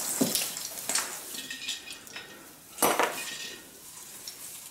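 Artificial Christmas tree being handled: plastic branches rustling, with small clinks of ornaments, and one louder rustle about three seconds in.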